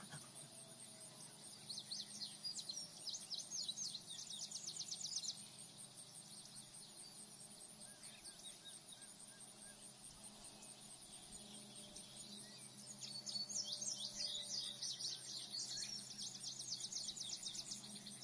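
Nature ambience of rapid, high-pitched chirping trills in two spells, one from about 1.5 to 5 seconds in and another from about 13 seconds to the end, with a quieter steady background between.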